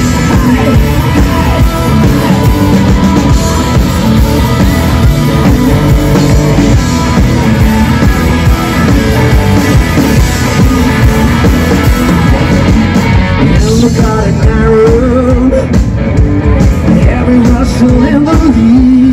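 Live rock band playing loud, with a singer, electric guitar, bass guitar and drum kit. About two-thirds of the way through, the bright top end thins out and the sung melody comes forward.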